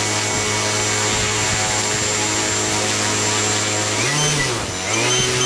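Electric RC airplane motor and propeller running steadily at high throttle. About four seconds in, its pitch dips and comes back up. Near the end a Spektrum DX8 transmitter starts a rapid, high-pitched beeping: its telemetry low-voltage alarm, warning that the two 4S flight packs have drained to the preset voltage.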